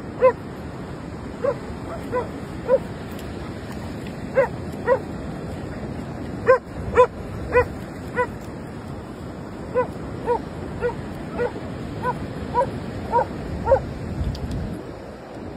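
A dog barking at play: about eighteen short, fairly high-pitched barks, some single and some in quick runs of two or three.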